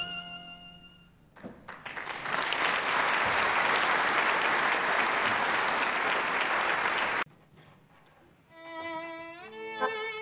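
The violin-and-accordion duo's last held note dies away, then the audience applauds steadily for about five seconds until the applause cuts off suddenly. A couple of seconds later a violin starts the next tune with sliding notes, joined by accordion.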